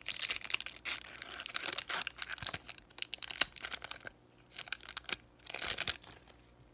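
Foil wrapper of a Pokémon TCG booster pack being torn open and crinkled by hand. The crinkling comes in a run of irregular bursts that die away about six seconds in.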